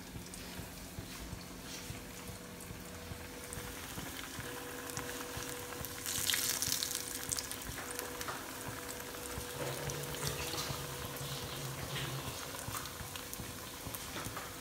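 Flour-coated potato-corn tikkis frying in hot oil in a kadai: a steady sizzle and bubbling that swells briefly about six seconds in.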